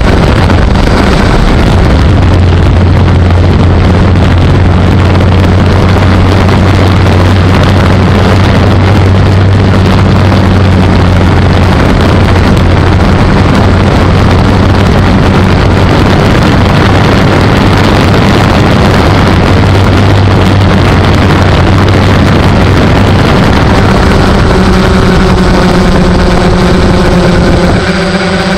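Multirotor drone's motors and propellers heard through its onboard camera: a loud, steady electric buzz with a low hum, over rushing noise from the propellers' airflow.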